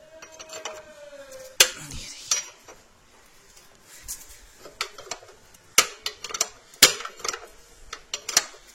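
Steel ring spanner clinking against a scooter's axle nut and metal parts as the nut is worked loose: a faint squeak sliding slightly down in pitch, cut off by a sharp clink, then a run of irregular sharp metal clicks and clinks.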